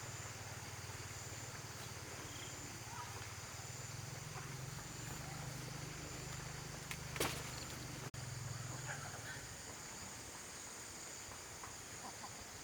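Outdoor ambience with a steady low hum that stops about three-quarters of the way through, one brief sharp sound a little past the middle, and a few faint chirps.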